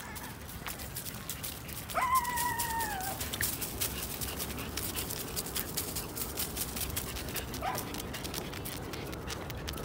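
Dry fallen leaves crunching and rustling under a corgi's paws as it walks through them. About two seconds in, a dog's whine lasts about a second, falling slightly in pitch, and a short rising whine follows near the end.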